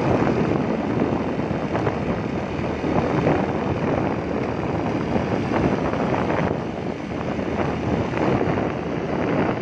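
Wind buffeting the microphone over the steady running noise of a moving road vehicle.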